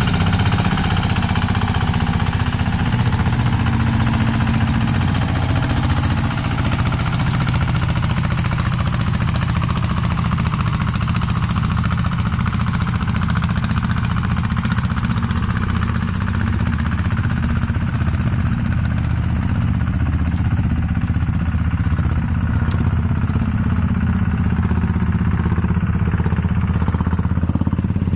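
Engine running steadily and loudly at a constant speed, with a rapid, even firing rattle and no change in pace.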